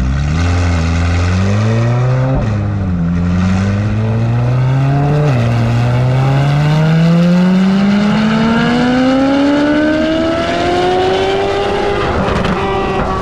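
C8 Corvette Z06's 5.5-litre flat-plane-crank V8 with an aftermarket exhaust, accelerating hard through the gears. The engine note climbs, drops sharply at upshifts about two and a half and five seconds in, then climbs in one long pull before easing off near the end.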